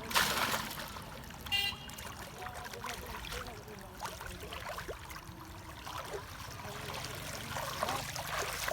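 Water trickling and splashing, with a sharp splash just after the start and small drips and plops throughout. A brief high squeak comes about a second and a half in.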